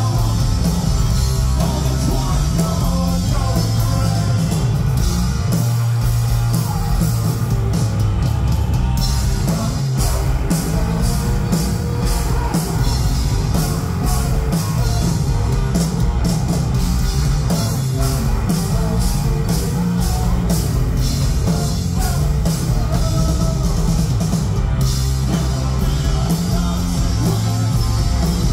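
Heavy rock band playing live and loud: distorted electric guitar, bass guitar and drum kit, with cymbal hits cutting through.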